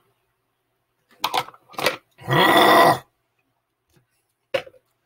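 A person gasping for breath twice after chugging a drink, then letting out a loud, drawn-out groan about two seconds in, and a short breath near the end.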